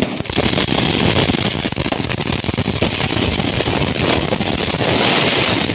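Fireworks burning with a continuous dense crackle and hiss, a rapid sputter of tiny pops rather than separate bangs, with the hiss growing brighter near the end.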